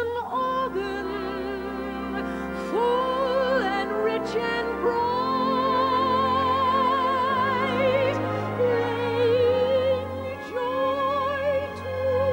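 Orchestral Christmas song: a woman's soprano voice sings long held notes with wide vibrato, sliding up into several of them, over sustained orchestral accompaniment.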